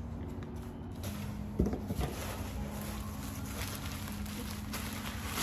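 Plastic packaging rustling and crinkling as it is handled, with one short knock about a second and a half in, over a steady low hum.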